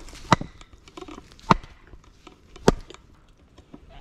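Three sharp chopping blows of a blade into the hard wood of a small tree trunk, about one every 1.2 seconds.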